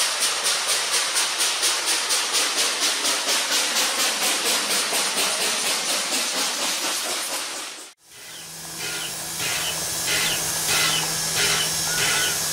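Reading T-1 4-8-4 steam locomotive No. 2102 working hard, its exhaust chuffing evenly at about four beats a second over steam hiss; the sound cuts out about eight seconds in. Then Everett Railroad 2-6-0 No. 11 stands hissing steam, with a steady low hum and repeated short puffs.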